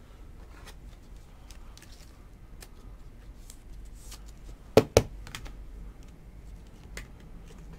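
Trading cards handled by hand, with soft scattered ticks and rustles of card edges and glossy card stock. Two sharp clacks come close together about five seconds in.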